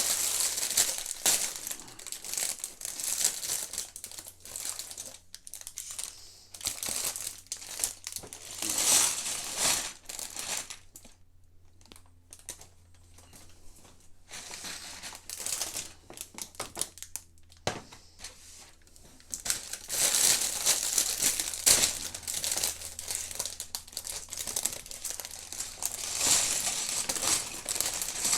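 Sealed plastic bags of Lego pieces crinkling and rustling as they are handled and sorted, in irregular bursts with a quieter spell partway through and one sharp click.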